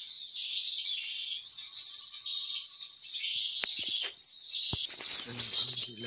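Dense, continuous high-pitched chirping and twittering of many small birds, with a couple of faint clicks in the second half.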